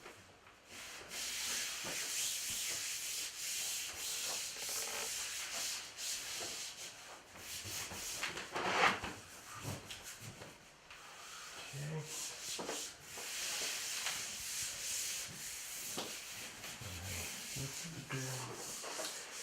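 Magnetic underlayment panel being rubbed and pressed flat by hand onto a wall coated in contact cement: a long, repeated dry scuffing, with one louder scrape about halfway through.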